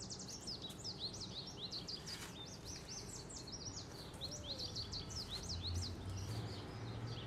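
Songbirds chirping and singing outdoors: a dense, continuous run of quick, high chirps from several birds, over faint background rumble.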